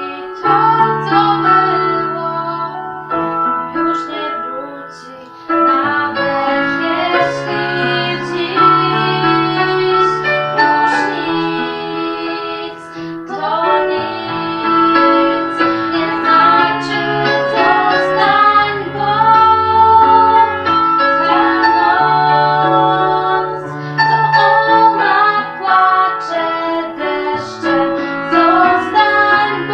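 Two female voices singing a duet to piano accompaniment.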